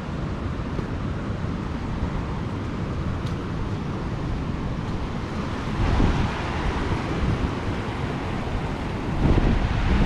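Floodwater of a creek in flood rushing over a waterfall in a steady torrent, with wind buffeting the microphone about six seconds in and again near the end.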